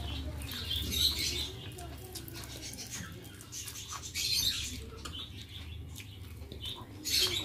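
Eating with the hand from a metal plate: fingers mixing rice and chewing. Three short sharp bursts of mouth and hand noise come about a second in, a little past the middle, and near the end.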